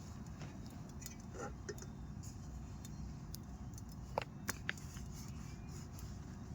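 Camp cooking gear being handled: three quick sharp clinks, like metal or glass knocking, about four seconds in, over a steady low rumble.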